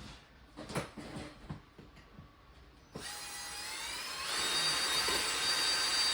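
A few light handling knocks, then about three seconds in an electric drill starts, its whine rising in pitch for about a second and then running steady as the masonry bit bores into a concrete-block wall.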